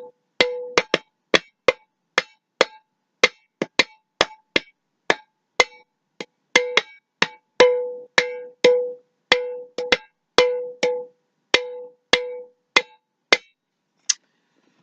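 Glass mason jar being tapped, about two sharp strikes a second in an uneven, drum-like rhythm, many leaving a short ringing tone. The tapping stops near the end.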